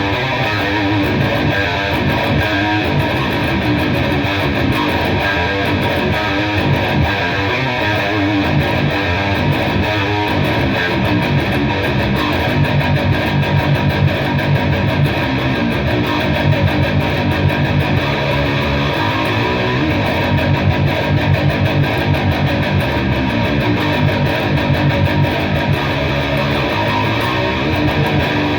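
Heavily distorted 7-string electric guitar tuned to drop G playing metal riffs, with a rhythmic low-string pulse through much of the passage. It runs through a Revv G-20 amp boosted by a Highwind Direwolf overdrive, with a noise gate in the chain.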